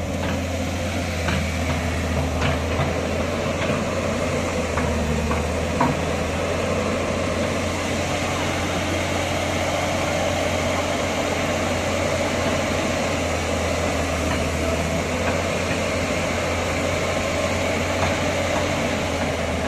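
Diesel engine of a Tata Hitachi crawler excavator running steadily under load while it works its boom and bucket against a stuck lorry. A few short sharp knocks come in the first six seconds.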